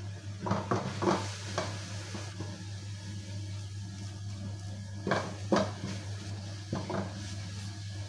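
Wooden spatula scraping and knocking against an aluminium kadai and a plastic plate as thick coconut barfi mixture is scooped out, in short clusters about half a second in, around five seconds in and near seven seconds in, over a steady low hum.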